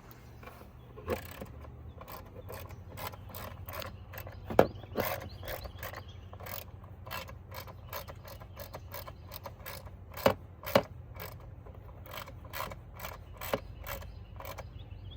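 Socket ratchet clicking steadily, about two clicks a second, as a fastener is tightened down, with a few louder knocks in among the clicks.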